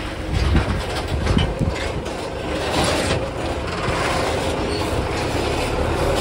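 Rumble and rattle of a moving vehicle, with uneven knocks in the first second or two and then a steadier run.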